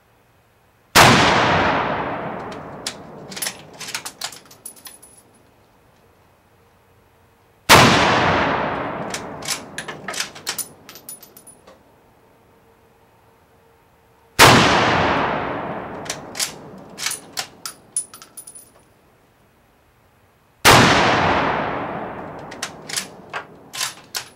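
A Mosin-Nagant M38 carbine in 7.62x54R fired four times, about six and a half seconds apart, each shot loud with a long echoing tail. After each shot comes a quick run of sharp metallic clicks and clacks as the bolt is worked to eject the case and chamber the next round.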